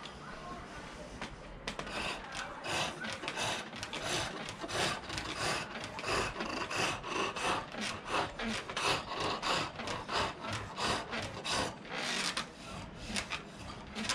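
Chisel cutting green silver birch spinning on a foot-powered pole lathe. The cuts come in a regular rhythm, about two a second, one on each downstroke of the treadle, and start about two seconds in.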